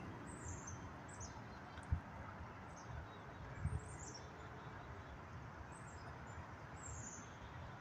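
Wild birds chirping: short, high, falling calls repeated irregularly over a faint outdoor background, with two soft thumps in the first half.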